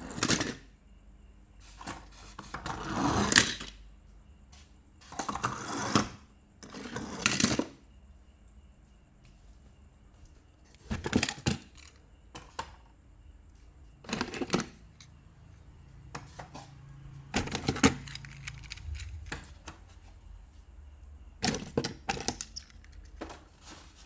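Die-cast toy cars being set down and pushed across a corrugated plastic board and a foam ledge: short rattling clatters of small metal bodies and wheels on the surface, coming every two to three seconds.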